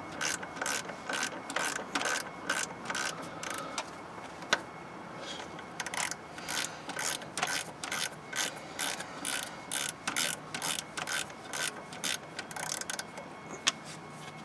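A 1/4-inch socket ratchet clicking in quick, even strokes, about three a second, as it loosens a bolt. There is a short lull about four seconds in, then another long run of strokes, and a few single sharp clicks near the end.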